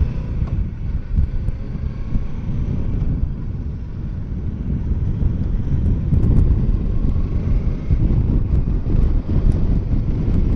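Wind buffeting the microphone of a Kawasaki Versys 650 motorcycle at highway speed, a dense low rumble that grows a little louder about halfway through, with the bike's parallel-twin engine faintly underneath.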